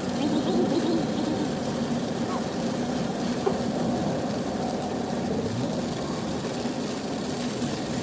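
A car driving on a rain-soaked road, with a steady engine hum and a wash of tyre and road noise.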